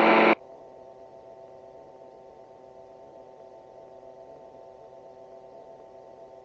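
A gyroplane's engine running steadily at climb power, heard as a faint, even hum of several fixed tones. A brief, loud burst of noise comes right at the start.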